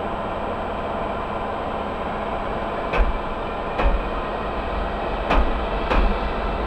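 Siemens Vectron electric locomotive running slowly past with a steady electric hum. Its wheels clack over a rail joint four times, in two pairs, about halfway through and again near the end.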